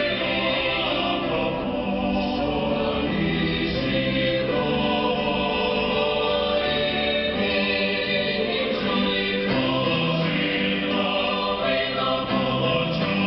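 Mixed chamber choir singing a passage of a choral cantata in held chords that shift every second or two.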